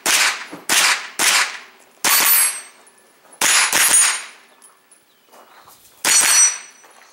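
Pistol-caliber carbine firing about seven shots: three about half a second apart, a single shot, a quick pair, then a last shot after a pause of nearly two seconds. After the shots about two seconds in and near the end, a high ringing follows, as of a steel target being hit.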